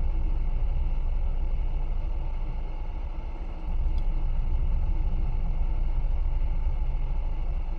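Steady low rumble of an off-road vehicle's engine idling, heard from inside the cab, with a brief dip in loudness a few seconds in.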